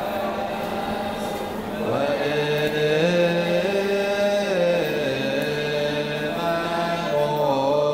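Choir chanting a wereb, an Ethiopian Orthodox hymn, in unison, with long held notes that slide up and down together. The voices swell louder about two seconds in.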